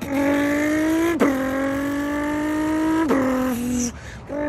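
A person imitating a Nissan GT-R accelerating through the gears with his mouth. The engine note climbs, then drops sharply at a shift about a second in and again about three seconds in. It breaks off briefly near the end, then starts again.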